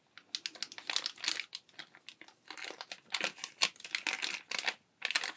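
A thin clear plastic bag crinkling as fingers handle and turn the item inside it. The crinkling comes in irregular spurts with brief pauses.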